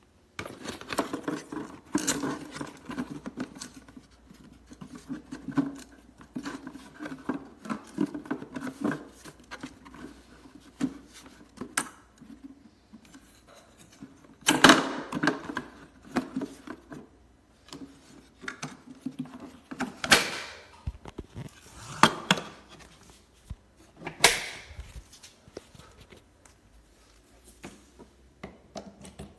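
Irregular clicking, rattling and rustling of hard objects being handled, with several sharper knocks in the second half.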